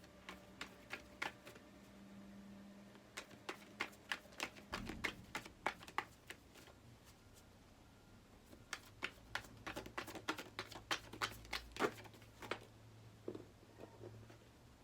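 A deck of tarot cards being shuffled and handled: runs of quick clicks and taps from the cards, in three bursts with short pauses between them.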